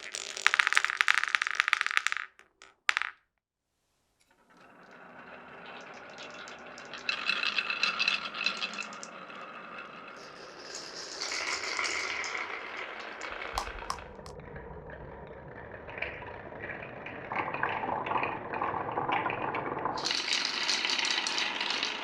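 Marbles rolling and clattering down a wooden and plastic marble run: a dense loud rattle, a sudden gap of silence about three seconds in, then steady rolling with louder clattering stretches and a bright rattle near the end.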